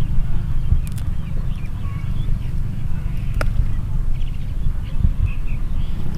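Outdoor wind buffeting the microphone as an uneven low rumble, with faint high chirps and a couple of light clicks over it.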